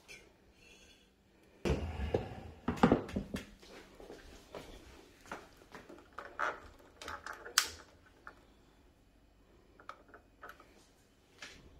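Scattered light knocks, taps and clatter of household items being handled and set down on a table, busiest about two to three seconds in and then thinning out to occasional taps.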